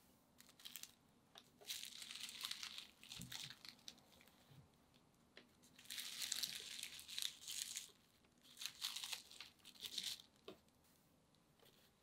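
Cloth and crinkly paper wrapping around a stollen rustling and crinkling as hands unwrap it, in four or five short bursts.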